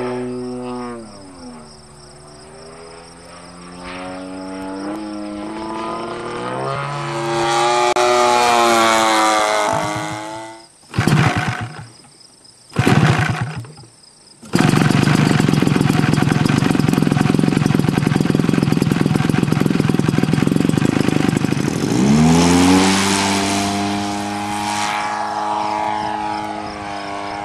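Model airplane engine droning as the plane flies overhead, its pitch sliding down and then climbing. After that, a model biplane's engine up close, hand-started with a stick on the propeller: it catches twice briefly, then starts and runs loud and steady. Near the end the pitch climbs again as a model flies past.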